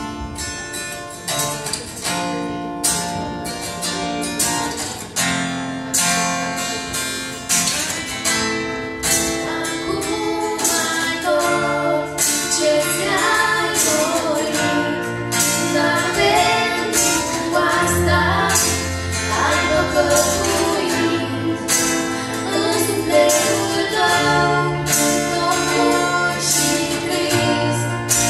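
Live band playing a song: a woman singing lead into a microphone over strummed guitars and a drum kit keeping a steady beat.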